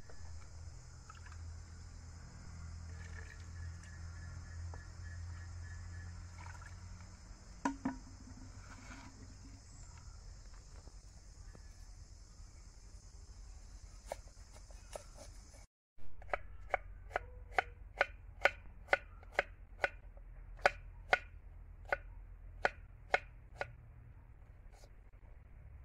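Kitchen knife chopping an onion on a wooden cutting board: sharp knocks at about two a second through the second half. Before that, a steady high-pitched insect drone with faint rustles of the onion being peeled by hand.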